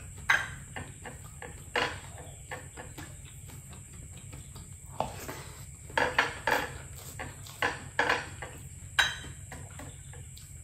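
Close-miked eating sounds: chewing and mouth noises, with fingers picking rice off a plate and light clinks of the dish, in irregular sharp crackles. A steady low hum runs underneath.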